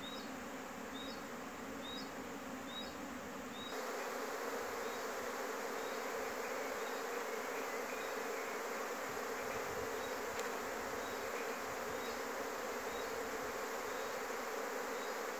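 Honeybees buzzing in a steady hum as they fly in and out of the many hive entrances of a mobile bee pavilion. The hum grows louder about four seconds in.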